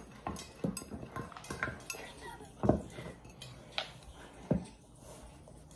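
Wooden spoon stirring butter in a glass measuring jug: an irregular run of taps, clinks and scrapes against the glass, with the two strongest knocks about two and a half seconds in and again a couple of seconds later.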